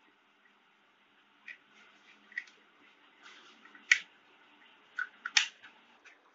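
Small sharp clicks and taps from a plastic toy car being handled, its hinged doors snapping shut; five or six clicks, the loudest about four seconds in.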